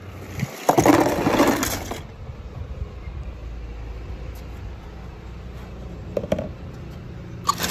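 A loud plastic clatter about a second in, lasting about a second, as a batch of small plastic toy tractors slides down a plastic slide and tumbles into a pit of plastic balls. After it comes a steady low rumble with a few light clicks.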